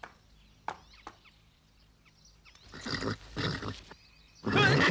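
Cartoon horse sound effects: after a quiet stretch, two breathy bursts about three seconds in, then a loud, wavering whinny starting near the end.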